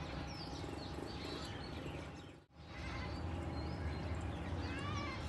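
Outdoor ambience of small birds chirping over a low steady rumble. The sound cuts out completely for a moment about halfway through, then resumes.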